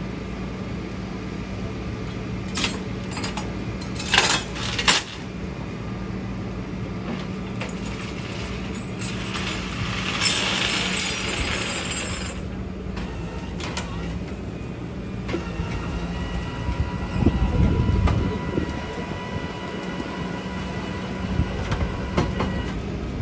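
Flatbed tow truck running its winch and hydraulics to pull a wrecked SUV up the tilted bed: a steady engine hum with sharp metal clanks a few seconds in, a stretch of scraping around the middle, and a low rumble later on.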